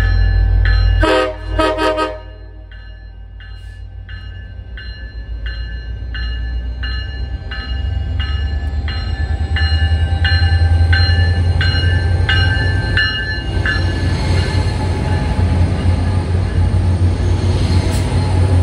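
Commuter rail diesel locomotive arriving at a platform: its bell rings about twice a second and it gives a short horn blast about a second in. The bell stops about two thirds of the way through, while the diesel engine's rumble and the wheel and brake noise grow as the locomotive pulls alongside.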